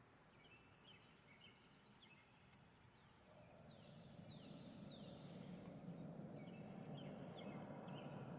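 Faint outdoor ambience: a bird chirping in short notes, three quick downward-sweeping whistles in the middle, and a low rumble that swells from about three seconds in.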